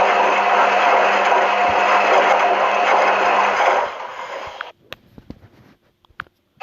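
Washing machine running with a steady motor hum and churning noise, which fades about four seconds in to a few faint clicks and then near silence.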